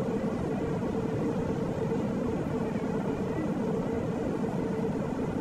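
Jet airliner cabin noise heard from a window seat beside the wing engine: the engines and airflow make a steady, even rush with a constant hum running through it.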